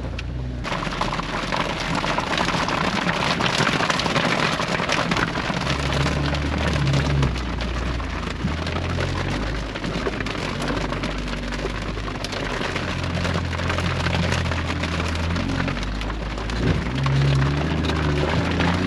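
Heavy rain and splashing water pelting a Jeep's windshield and body, heard from inside the cab as a dense crackling hiss that comes on suddenly a moment in. The Jeep's engine runs low underneath.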